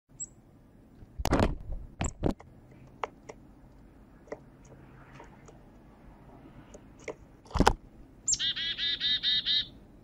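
Black-capped chickadee calling, with a rapid run of repeated notes near the end. Before that come a few sharp knocks of small birds landing on and moving the little wooden and cardboard props, with faint chips in between.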